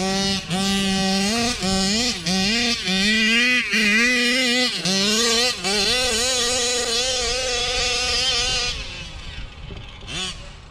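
Large-scale RC car's 35cc two-stroke engine revving hard, its pitch swinging up and down with short lifts off the throttle and climbing highest about three to five seconds in. Near the end it drops off and fades.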